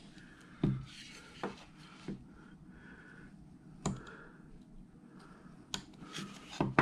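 Carving knife slicing small wedges of wood out between stop cuts. Quiet scraping, broken by about six sharp clicks at irregular intervals as chips snap free.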